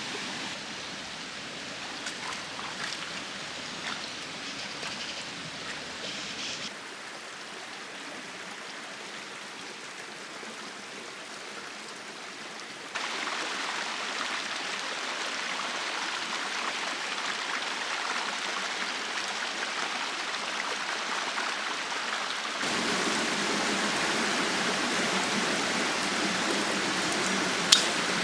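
Mountain stream water rushing steadily, its level and tone jumping abruptly three times, with one sharp click near the end.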